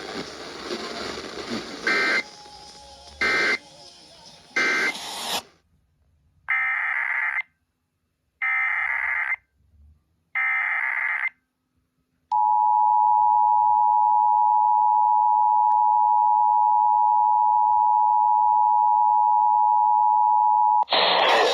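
Emergency Alert System tones. Three short end-of-message data bursts sound over background program audio, then three one-second warbling data header bursts of a new alert, then the steady two-tone EAS attention signal (853 and 960 Hz) for about eight and a half seconds, which cuts off near the end.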